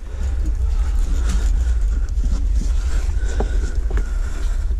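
Steady low rumble of wind buffeting the microphone, with scattered knocks and rustles.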